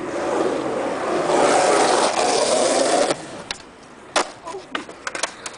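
Skateboard wheels rolling on concrete, a steady rumble that cuts off with the pop of the tail about three seconds in. About a second later comes a loud sharp clack of the board striking, then several lighter clatters.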